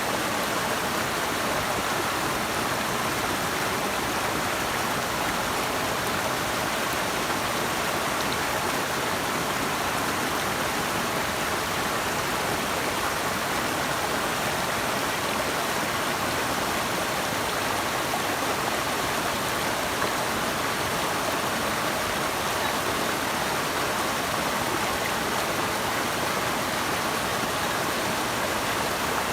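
Flowing water rushing steadily, an even noise with no breaks or changes.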